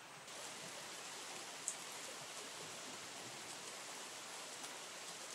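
Faint, steady rushing of flowing water, a little louder from a moment in. A single short, high click sounds about two seconds in.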